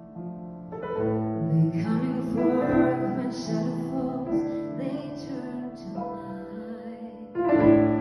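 Slow, gentle piano song with a woman singing over the piano.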